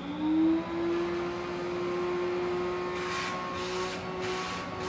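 PALFUR pet grooming vacuum running on the lowest of its three suction settings. Its motor whine climbs for a moment as it spins up, then holds steady over a low hum. Short bursts of airy hiss come through the hose in the second half.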